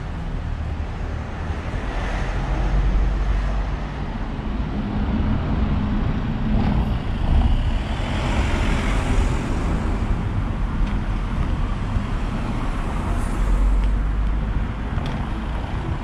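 Street traffic: cars and a van driving past on a town street, a steady rumble of engines and tyres that swells as the van passes close about halfway through.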